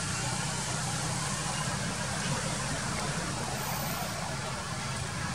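A steady low rumble under an even hiss, with no distinct calls or knocks.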